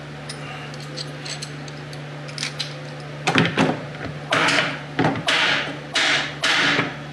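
Metal parts of a hydraulic tube-flaring tool and its dies clicking and knocking, then clattering and scraping in four short bursts in the second half as the tool and dies are handled and set down on the bench and in the plastic case. A steady low hum runs underneath.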